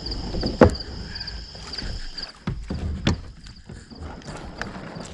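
Kayak being paddled in shallow water, with several sharp knocks of the paddle or gear against the hull over a low rumble. Insects chirp faintly in a fast repeating pattern.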